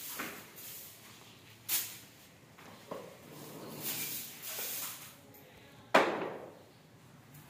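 Short hand broom sweeping a stone floor in a series of brushy swishes, with one sharp knock about six seconds in.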